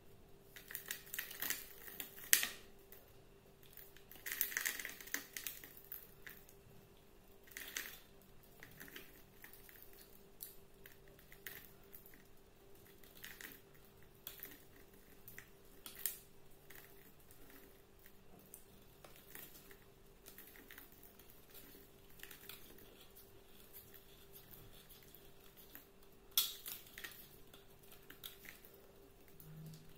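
Utility knife blade carving and scraping into a bar of soap: crisp crackling scrapes as flakes break off, coming in short spells with quieter stretches between, the sharpest near the start and again near the end.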